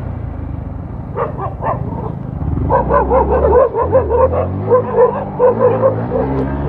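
Dogs barking in a fast run of barks, about three a second, starting a few seconds in after a few earlier barks, over the steady running of a motorcycle engine.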